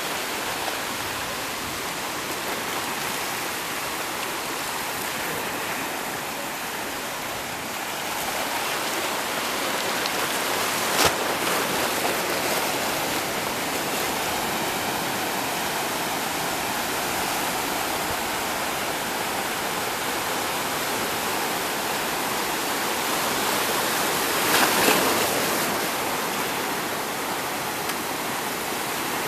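Sea surf washing and breaking over a rocky reef shore: a steady rush of water and foam that grows louder about a quarter of the way in and swells again near the end. A single short click comes about a third of the way through.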